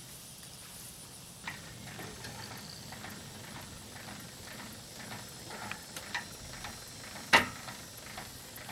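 Irregular clicks and metal clanks of a boat trailer's tongue jack being hand-cranked to lift the trailer, with one sharper, louder clank about seven seconds in.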